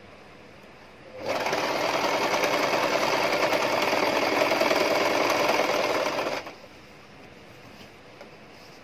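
Electric domestic sewing machine running at a steady speed for about five seconds, stitching an elastic waistband onto trouser fabric. It starts about a second in and stops abruptly.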